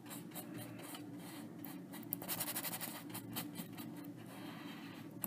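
Paintbrush stroking and dabbing oil paint onto canvas, a faint irregular scratchy brushing that grows busier a couple of seconds in.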